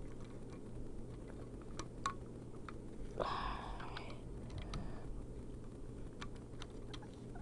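Small plastic clicks and taps of LEGO pieces being handled and pressed together during a repair, with a brief rustle about three seconds in.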